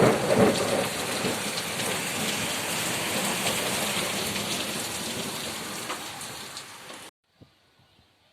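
Heavy rain pouring down in a thunderstorm, with a low rumble at the start that eases off. The sound cuts off suddenly about seven seconds in.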